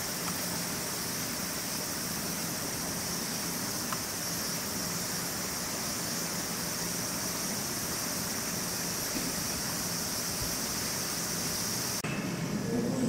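Steady outdoor background hiss with a constant high-pitched band and a faint low hum. Near the end it cuts off abruptly to a duller, lower sound.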